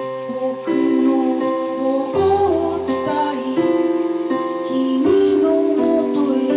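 Live keyboard chords with guitar, a song starting up and the chords changing every second or two.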